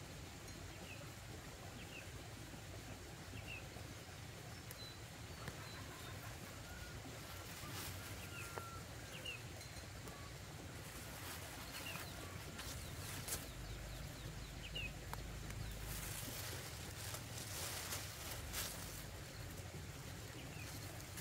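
Quiet rural field ambience with scattered short bird chirps, and the rustle of leafy plants and a plastic bag as greens are picked by hand; the rustling gets busier past the middle.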